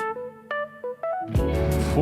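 Background music: a short break where only a few single keyboard-like notes play, then the full beat with drums and bass comes back in about a second and a half in.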